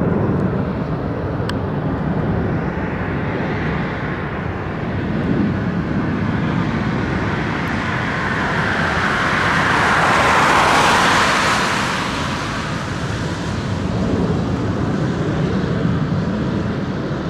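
Airbus A400M Atlas turboprops droning together with a JAS 39 Gripen jet fighter flying in formation past the listener. The sound swells to its loudest about ten seconds in as the pair pass, then fades as they fly off.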